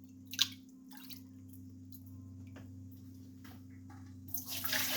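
Water splashing and pouring near the end as hot water is taken out of an overfilled canning pot, after a sharp click about half a second in and a few faint ticks, over a steady low hum.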